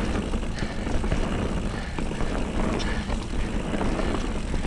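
Mountain bike rolling fast down a dry, stony dirt trail: a steady rumble of tyres over loose rock and gravel, with many small clicks and rattles from stones and the bike, and wind buffeting the microphone.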